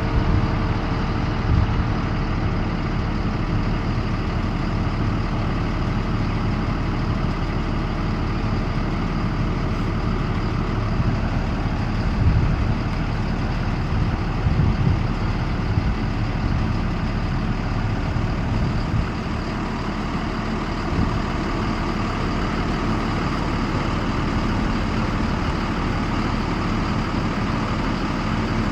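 Yellow school bus engine idling steadily, with a couple of brief louder swells about halfway through.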